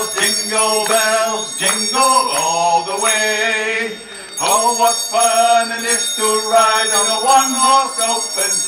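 Two men singing a Christmas carol together into microphones through a PA, in phrases with long held notes.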